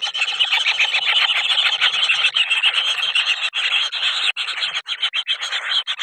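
Kingfisher nestlings calling together in the nest: a dense, unbroken chorus of rapid calls from several chicks scrambling over one another.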